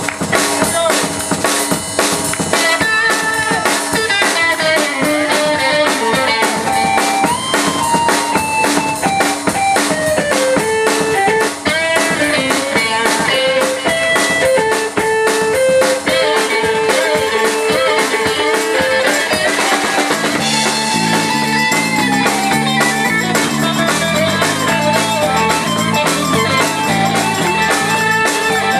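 A live blues-rock band plays an instrumental stretch: drum kit, electric guitar, bass guitar and keyboards, with a lead melody line over steady drums. About two-thirds of the way through, the bass line comes forward.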